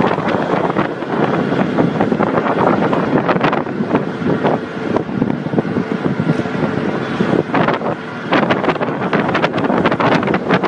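Wind buffeting the microphone over the road noise of a moving car, heard from inside the car, with frequent short gusts.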